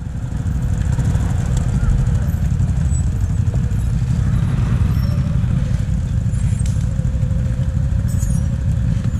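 Quad ATV engine running steadily at low revs as the machine creeps down a steep leafy slope.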